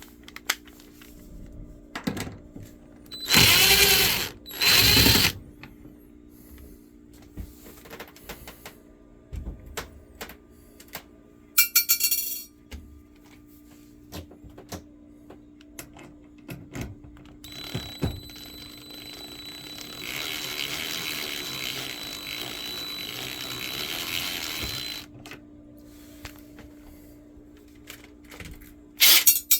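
Cordless driver spinning out T20 panel screws: two short loud bursts of the motor, a brief buzz later, and then a longer, quieter run of several seconds, with handling clicks between them and a faint steady hum underneath.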